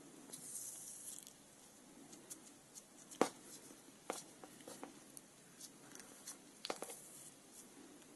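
Faint rustling and clicking of hand-sewing: a needle and thread worked through grosgrain ribbon held in the fingers. There is a short hiss near the start and a few sharp clicks, the loudest about three seconds in.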